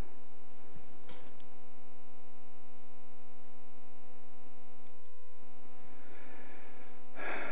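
Steady electrical hum with a buzzy pitched tone, briefly dropping out about five seconds in. A few faint clicks and a light rustle as small parts and a rag are handled.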